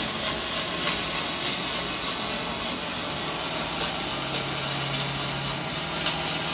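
MIG welder's arc burning steadily with a continuous crackle as a cover strip is welded in along the liner edge of a dump body's sidewall.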